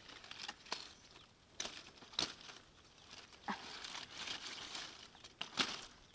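Large knife cutting through a pineapple plant's stalk and stiff, spiky leaves: several sharp chopping strokes with the leaves rustling and tearing between them.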